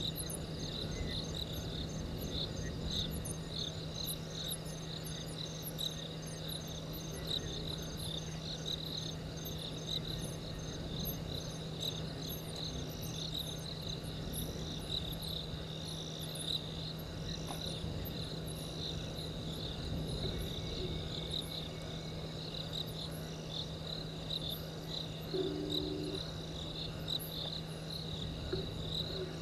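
Night chorus of crickets chirping in fast, dense pulses, with a higher, faster trill that stops about halfway through. A steady low hum runs underneath.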